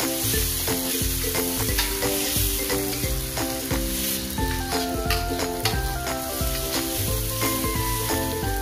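Chopped shallots, garlic and tomatoes sizzling in hot oil in a steel wok, with a metal spatula scraping and clicking against the pan as they are stirred. Soft background music with a melody plays underneath.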